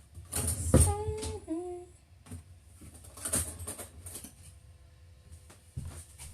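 A woman hums a short phrase that steps down in pitch at the end, followed by scattered faint clicks and knocks.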